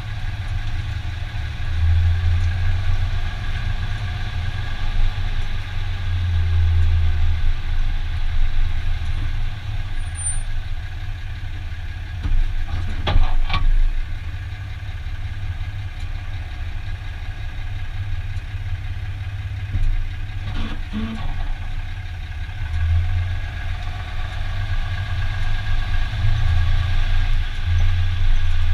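Dodge Ram 2500 pickup running at low speed with a steady low drone that swells now and then. Two short clusters of knocks come through from the drivetrain, about halfway and again about two-thirds of the way in. This is the drivetrain noise the truck makes when parking.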